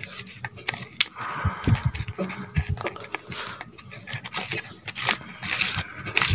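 Hand mashing chopped onion, green chilli, mustard oil and salt in a small steel bowl, fingers squeezing the mix and rubbing against the metal in a run of irregular short scrapes. There are a few low thumps between about one and a half and three seconds in.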